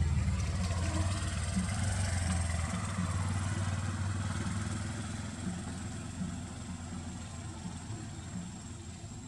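A motor vehicle's engine running nearby, a low steady hum that grows gradually fainter.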